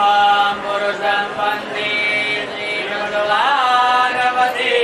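A voice chanting Sanskrit mantras in a sung recitation, with long held notes and glides between pitches.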